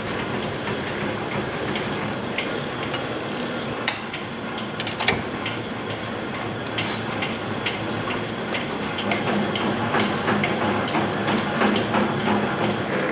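Confectionery-making machinery running steadily with a busy clatter of small metallic clicks and knocks, and one sharper knock about five seconds in.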